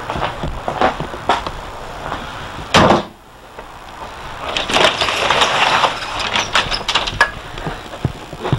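Knocks and rustling from a handheld camcorder being carried through the rooms of a house, over a steady background noise. A loud knock comes about three seconds in, and the background drops away abruptly right after it.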